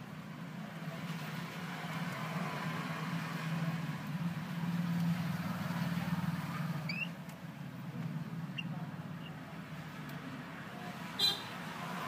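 Low steady rumble of a vehicle engine, building over the first few seconds and easing off after about seven seconds. Over it come a few short high budgerigar chirps, the loudest about eleven seconds in.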